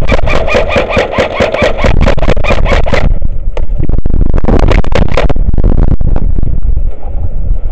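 Airsoft gun firing a long full-auto burst: a fast, even run of sharp cracks, about ten a second, that stops abruptly about three seconds in. After it come a few scattered single cracks over a steady loud low rumble.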